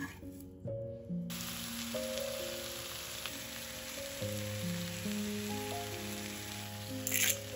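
Food sizzling in a frying pan, a steady hiss, under soft background music with held notes. A few sharp clicks or knocks come near the end.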